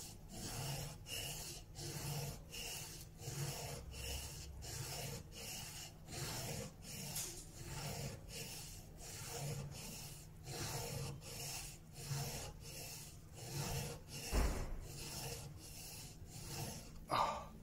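Steel chisel bevel scraping back and forth on a sharpening stone under heavy hand pressure, in an even rhythm of about two strokes a second. One side of the bevel is being ground down to square up a damaged edge, which raises a large burr on the back.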